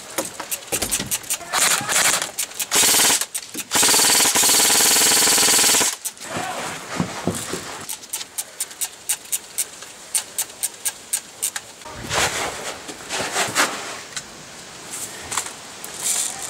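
Airsoft rifles firing on full auto. The longest, loudest burst lasts about two seconds, starting about four seconds in, with shorter bursts before and later. Strings of sharp single clicks run in between.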